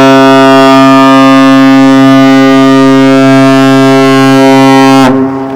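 AIDA cruise ship's horn (typhon) sounding one long, loud, steady blast that stops abruptly about five seconds in, with a fainter horn note carrying on after it.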